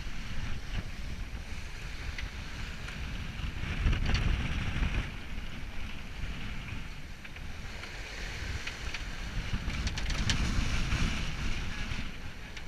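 Wind buffeting the microphone over water rushing and splashing along the hull of a sailing yacht making way in open sea. Louder surges of breaking water come about four seconds in and again around ten seconds.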